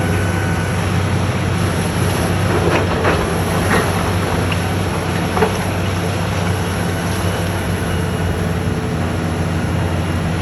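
Diesel engine of a demolition excavator running steadily, with a few cracking and crunching sounds a few seconds in.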